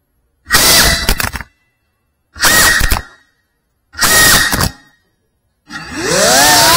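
FPV quadcopter's electric motors and propellers whining in three short bursts about a second long, with silence between them, then a longer burst from near the end with the whine rising in pitch as the throttle goes up.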